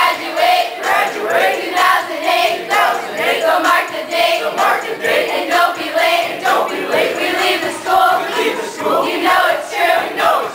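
A group of young voices chanting a rap in unison, with a regular rhythmic pulse.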